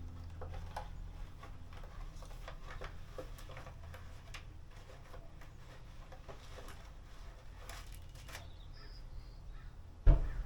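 Scattered light clicks and taps of parts and tools being handled on a workbench over a steady low hum, then one loud thud near the end.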